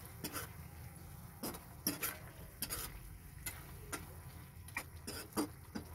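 Metal spoon stirring vegetables and pork in a wok, scraping and clicking irregularly against the pan.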